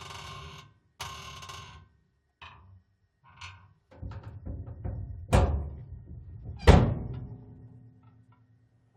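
Metal flap creaking on its hinge, two long creaks then a few short ones. It then rattles and slams twice, the second slam the loudest, with a metallic ring hanging on after it.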